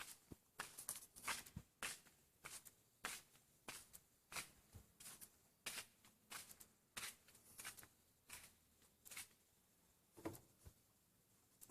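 Quiet, irregular short scrapes and clicks, about one or two a second.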